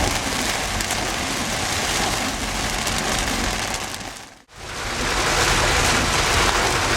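Heavy rain pouring down on a moving car on a wet, flooding road: a dense, steady hiss of rain. It cuts out briefly about four and a half seconds in, then comes straight back.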